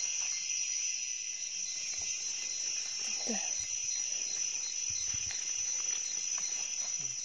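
Steady, shrill chorus of forest insects, a continuous high drone. A few faint dull knocks sit underneath.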